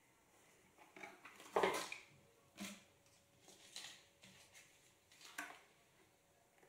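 Soft handling sounds of cloth slippers and a cardboard box: a few scattered rustles and light taps, the loudest about one and a half seconds in.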